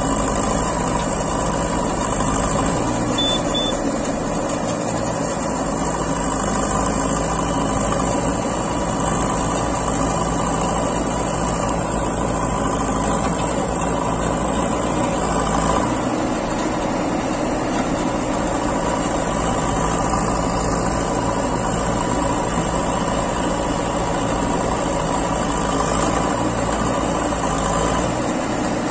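JCB 3DX backhoe loader's diesel engine running steadily while its backhoe arm digs and loads soil. The engine note shifts slightly a couple of times.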